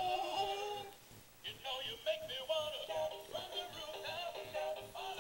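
Animated plush toy dog singing a recorded song in a synthetic voice, with a short break about a second in.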